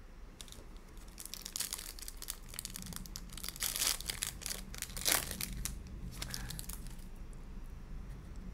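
Foil wrapper of a trading-card pack crinkling and tearing as it is ripped open by hand, in a run of crackles that is loudest about four and five seconds in.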